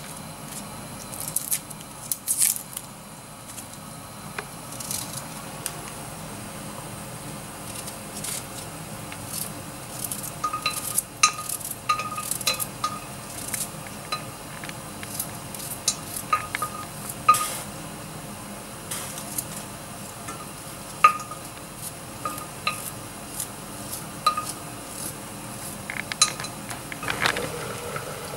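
Garlic cloves being cut by hand with a small knife over a stainless steel pan. Scattered light clicks and clinks come as the blade and the falling pieces hit the metal, some ringing briefly. Near the end, olive oil is poured into the pan.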